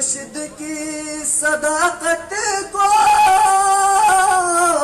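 A man singing an Urdu devotional tarana solo into a microphone: a few short melodic phrases, then a long, loud held note from about three seconds in.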